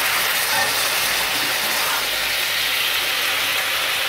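Soy sauce boiling in a frying pan with a steady, even sizzling hiss.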